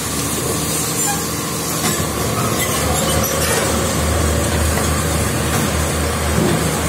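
Fire engine's engine running, a low steady rumble that grows stronger about two seconds in, over an even hiss.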